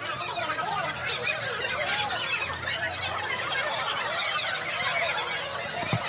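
A room full of children's voices chattering and squealing at once, many overlapping high voices with no single speaker standing out.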